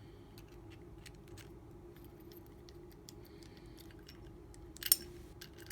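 Small metallic clicks and rattles of a Master Lock padlock and its key being handled and worked, with one sharp, loud metal click about five seconds in.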